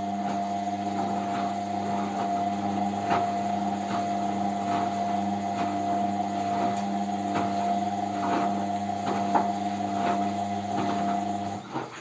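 Indesit front-loading washing machine running: a steady electrical hum with irregular light knocks and clicks, cutting off suddenly near the end.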